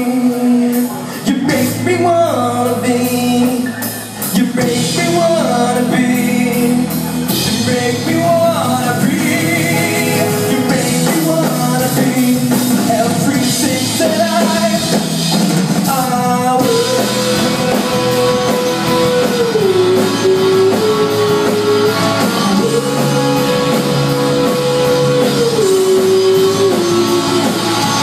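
A live rock band playing the song, with a melodic lead line held and stepping over the full band.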